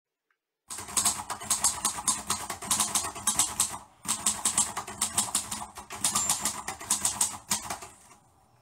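A fast, uneven run of sharp clicks, about four or five a second, with a short break about four seconds in, stopping shortly before the end.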